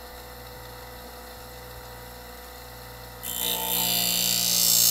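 Wolff Twice As Sharp scissor sharpener's motor running with a steady hum. A little over three seconds in, a scissor blade is put to the spinning cutting wheel and a loud, hissing grind starts abruptly.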